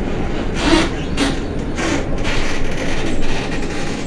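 Ride noise inside the passenger cabin of a moving 2003 Iveco city transit vehicle: a steady low rumble with repeated bursts of rattling clatter.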